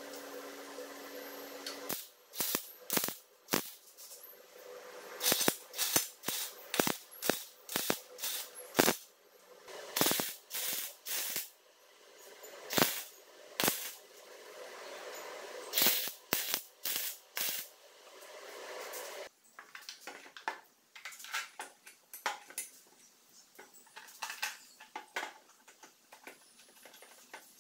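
MIG welder tack-welding a metal tube bike frame. A steady hiss for about two seconds gives way to many short, sharp crackling bursts, each a brief weld, often in quick succession. The bursts grow fainter and sparser in the last third.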